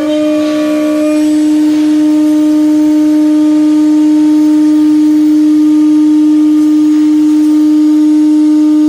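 9 kW HQD spindle of a CNC router running at speed, a loud steady whine.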